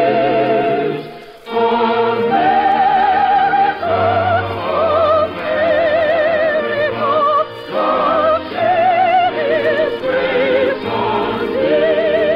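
Operatic singing with wide vibrato over orchestra and choir, held notes broken by short breaths, on a narrow-band old radio broadcast recording.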